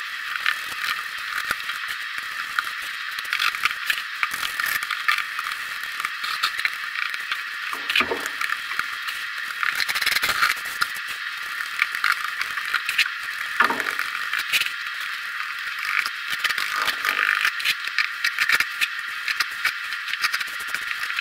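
Steady mechanical rattling with dense irregular clicks and a few dull thumps, from the wooden form of freshly poured concrete being vibrated so the wet concrete settles level and gives up its trapped air.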